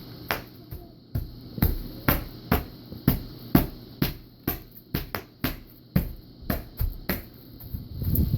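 Bubble wrap popping: about twenty sharp single pops, two or three a second at uneven spacing.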